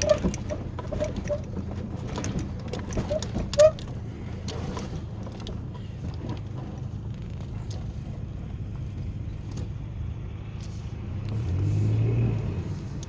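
A car engine runs steadily, with scattered knocks and rattles in the first few seconds as the car goes over the rough road. Near the end the engine revs up and swells for a second or two as the car bogs down and gets stuck.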